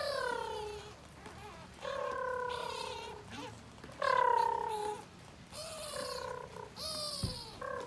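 A kitten meowing over and over: about five long cries, each falling in pitch and about a second apart.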